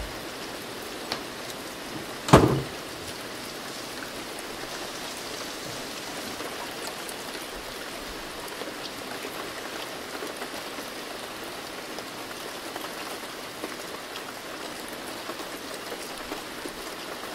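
Steady rain hiss, with one loud, short thump about two seconds in and a faint click just before it.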